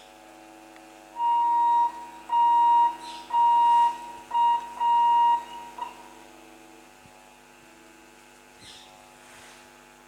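Electric multiple unit train horn sounding five high single-tone blasts in quick succession, the fourth one short, over a steady electrical hum.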